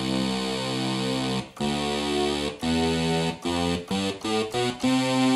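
Sequential Circuits Prophet-5 analog synthesizer playing single notes in unison mode with oscillator B on, a rich buzzy tone. There are three held notes, a quick run of short notes about four seconds in, then a long held note. The stacked voices sound in tune together, not drifting apart: the sign that the oscillators are stable after the faulty CEM3340 chip was replaced.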